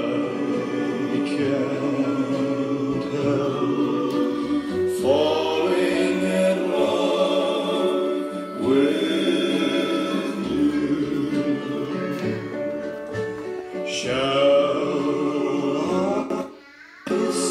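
Recorded choir music with sung voices, played through a Pioneer VSX-44 AV receiver and its speakers. The music drops out briefly near the end.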